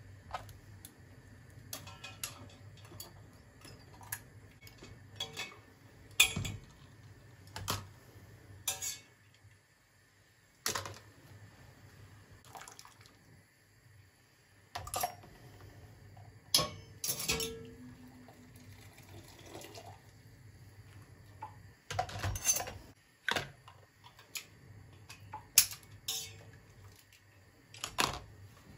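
Dishes and utensils being handled, with sharp clinks and knocks at irregular intervals, a few ringing briefly.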